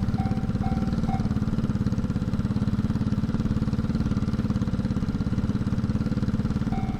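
An engine running steadily with a rapid throb. A level-crossing warning bell dings in a regular rhythm during the first second and starts again near the end.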